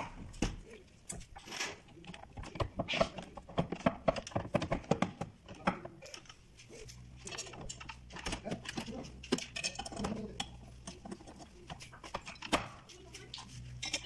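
Irregular clicks, taps and knocks of metal door-lock hardware being handled and fitted against a wooden door. A low steady hum joins about halfway through.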